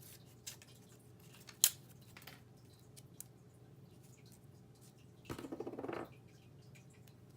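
Small clicks and taps of paper-crafting supplies being handled while copper thread is stuck down with glue dots, with one sharp click about a second and a half in and a short rasp for under a second around five seconds in.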